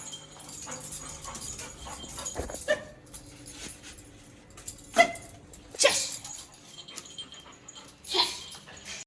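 A Labrador puppy making a few short vocal sounds, the loudest about five seconds in, with others about six seconds in and near the end.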